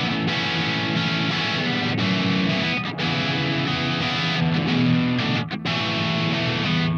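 SLX Raven Modern Pro 24 HH electric guitar with Seymour Duncan humbuckers, played through an amp: a run of chords and notes, broken by two short gaps, about three seconds in and again about five and a half seconds in.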